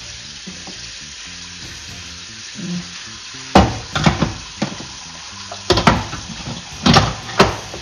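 A steel cooking pot and lid clunking and knocking as the pot is set into an electric pressure cooker: a series of loud metal knocks starting about three and a half seconds in, over a steady hiss.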